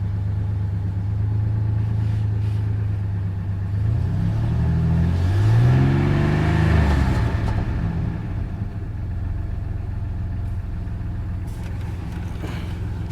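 Rebuilt Ford F-150 4.2-litre V6 idling steadily from a cold start while it warms up. In the middle, a louder engine sound swells up, rising and then falling in pitch, and fades after a few seconds.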